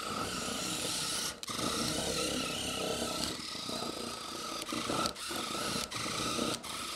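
Small electric RC motor and gearbox of a brick-built tracked toy robot whining while its tracks grind across a wooden tabletop. The sound dips briefly a few times as it is steered.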